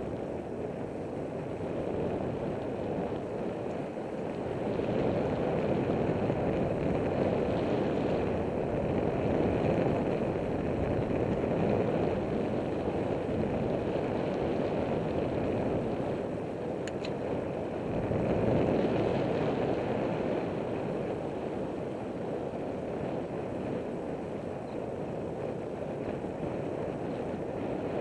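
Wind rushing over the microphone of a camera riding on a moving bicycle: a steady rush that swells and eases a couple of times, with a single sharp click about two-thirds of the way through.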